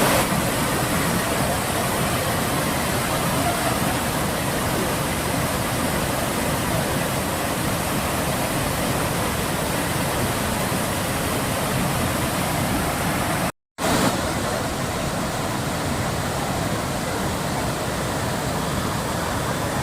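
Waterfall: a loud, steady rush of falling water, cut off for a split second about two-thirds of the way through.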